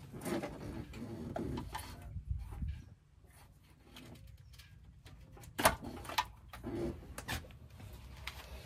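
Scattered sharp clicks and knocks of hand work on the wheel speed sensor harness brackets in a car's wheel well, the loudest a bit over halfway through, with a bird cooing softly in the background.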